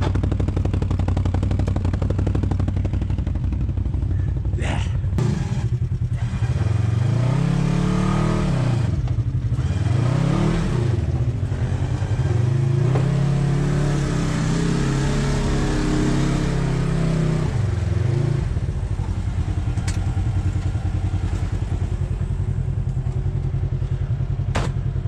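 Side-by-side buggy engine idling, then revved up and down over and over for about twelve seconds as it drives through a muddy rut. Two sharp cracks come about five seconds in, and another comes near the end.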